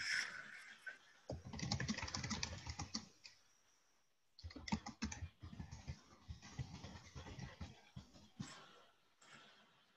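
Typing on a computer keyboard: quick, irregular key clicks in two bursts, the first about a second in and the second from about four and a half seconds to eight seconds in.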